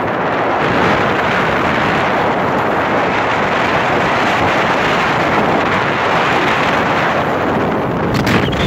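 Steady rushing wind on the microphone of a camera carried by a skier on a downhill run, with a short knock near the end.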